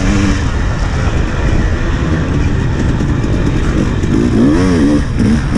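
2017 KTM 300XC's two-stroke engine running hard under the rider's throttle over a rough dirt track, its pitch wavering, with a quick rev up and back down about four to five seconds in.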